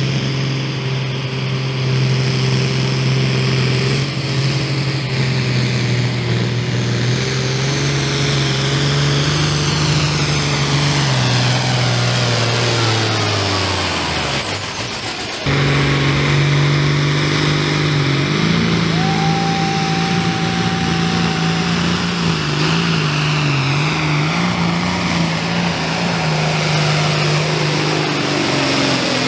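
Turbocharged light limited pulling-tractor engines under full load hauling a sled. A New Holland's engine holds a steady high drone, then its pitch falls away over a few seconds as the pull winds down. After a sudden cut, a second tractor's engine pulls with a wavering note and a steady high whistle for about three seconds.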